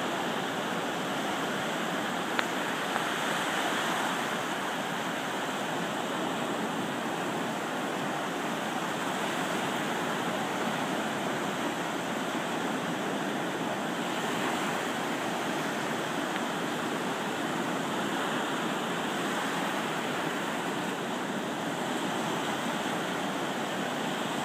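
Ocean surf breaking and washing up over the sand: a steady rushing noise that swells and eases gently.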